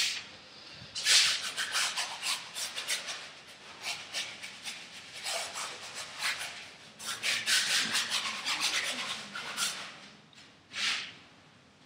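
A paintbrush scrubbing and scraping across a large canvas in quick runs of short strokes, with brief pauses between the runs.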